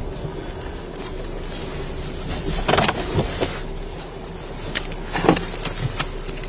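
Car driving: a steady low road-and-engine rumble, with a scattering of sharp clicks and knocks in the second half.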